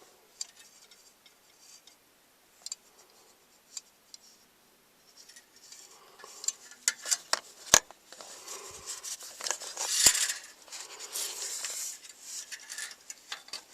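Hand-handling of small metal parts: scattered light clicks and clinks, coming thicker from about halfway through, with a spell of rustling and scraping near the end.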